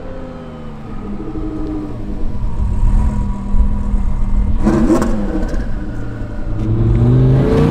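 Twin-turbocharged Audi R8 V10 engine running at low speed. About five seconds in there is a quick rev that drops straight back, and near the end the engine rises steadily in pitch as the car accelerates.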